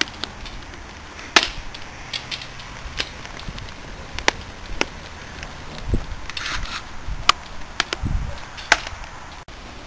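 Microwave oven burning in a fire bin: sharp, irregular pops and crackles from its burning plastics over a low steady hiss, with a couple of dull thumps in the second half.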